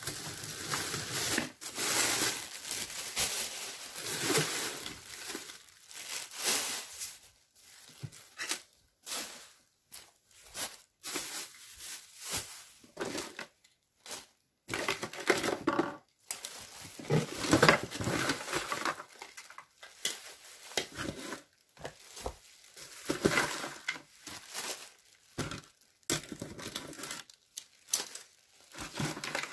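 Hands rummaging through a drawer of small items: plastic bags and wrappers crinkling and rustling, with light clicks and knocks of small objects, in fits and starts with short pauses.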